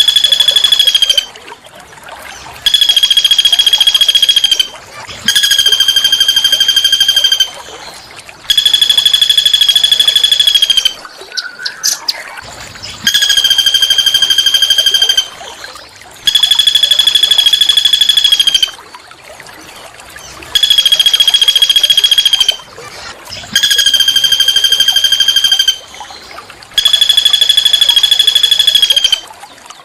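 A small songbird gives a harsh, buzzing trill at one steady high pitch. It repeats about nine times, each trill lasting around two seconds with a short pause between.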